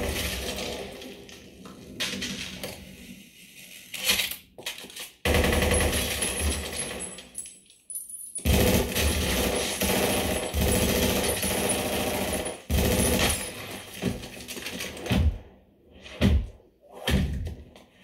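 Film soundtrack of a gunfight played through a Klipsch RP-450C center channel speaker and heard in the room: rapid gunfire with clattering debris and metallic clinking, in long loud stretches broken by a few brief pauses.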